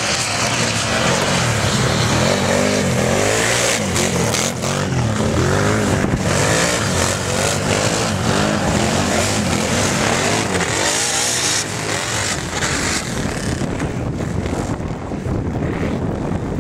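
Several racing ATV engines revving, their pitch rising and falling again and again as they accelerate and back off.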